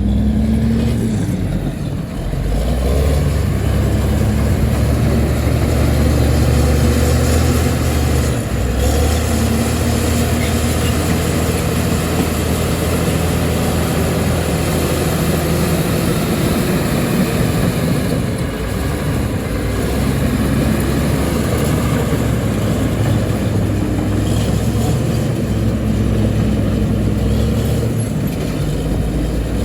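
Heavy earth-moving machine's diesel engine running continuously, its note dropping and rising again several times as it works.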